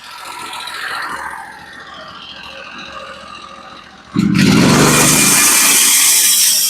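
Norwood HD36v2 portable band sawmill running: the motor and band run moderately at first, then about four seconds in the sound jumps suddenly to a loud, steady full-power saw noise as the band goes to work in a dry pitch pine log.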